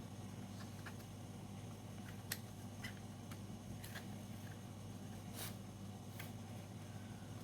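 Scattered small clicks and taps as the parts of a G17 replica pistol are handled and taken apart, over a steady low hum.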